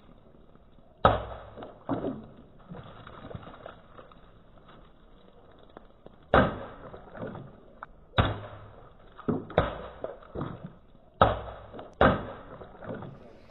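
Hand-forged rebar sword blade chopping through water-filled plastic bottles: about eight sharp strikes a second or more apart, two of them in quick succession near the middle.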